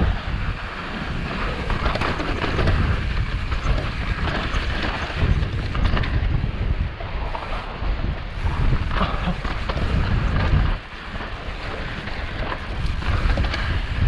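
Wind rushing over a helmet-mounted action camera's microphone as a mountain bike descends fast on loose, sandy and rocky dirt, with the crunch of the tyres and knocks and rattles from the bike over rough ground. The noise eases briefly near the middle, then builds again.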